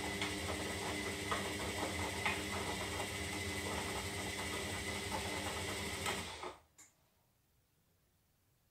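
Zanussi Lindo 300 washing machine running with a steady motor hum and scattered clicks. It cuts out suddenly about six and a half seconds in, a single click follows, and then there is near silence.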